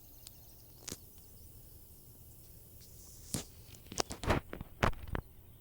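Footsteps: a single step about a second in, then a quick run of several sharper, louder steps from about three and a half to five seconds in.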